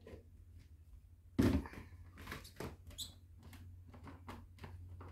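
Plastic clunks and clicks of a Magic Bullet blender cup being taken off its motor base and its blade unit unscrewed. There is one louder clunk about a second and a half in, then a string of lighter clicks.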